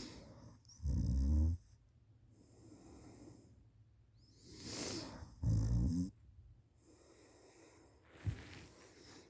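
A person snoring in deep sleep: two loud, low, rough snores, about a second in and about five and a half seconds in, each after a softer breathy breath. A short click near the end.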